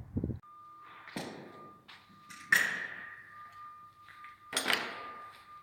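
A few sharp knocks and clunks, the loudest about two and a half seconds in with a short ring after it, over a thin, steady high-pitched beep that starts about half a second in.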